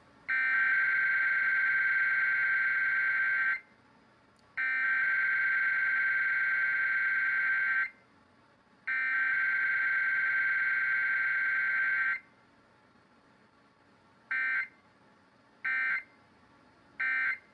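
Sage Digital ENDEC 3644 sending an Emergency Alert System Required Weekly Test: three long bursts of SAME header data tones, each about three seconds and a second apart. After a two-second pause come three short end-of-message bursts.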